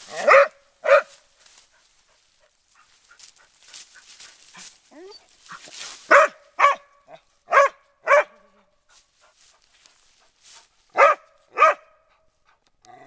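A young boar-hunting dog barking in short, high yaps that come in four pairs, about half a second apart within each pair.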